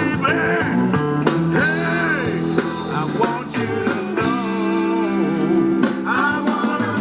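Rock-style music with guitar and a singing voice.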